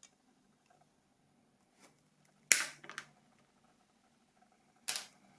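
Two sharp clicks about two and a half seconds apart, the first followed by a couple of smaller clicks, from tools and small parts being handled on a work surface during a phone battery repair.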